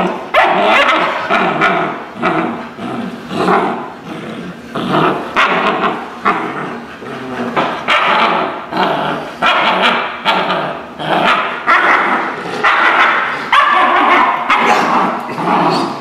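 A Malinois puppy growling and barking over and over in short bursts as it bites and tugs a bite pillow, the rough "rawr, rawr" of a young dog in prey drive showing natural aggression.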